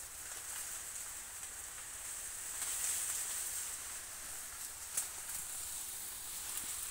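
Sugarcane leaves rustling as someone moves through a dense cane field, over a steady high hiss, with one sharp click about five seconds in.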